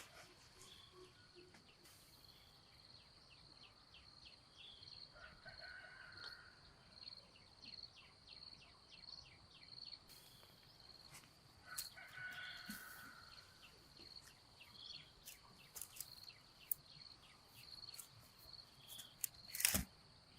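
Faint countryside ambience: a steady high-pitched insect chirring with two short chicken calls, about five and twelve seconds in, and scattered light clicks. A loud, brief crackle comes near the end.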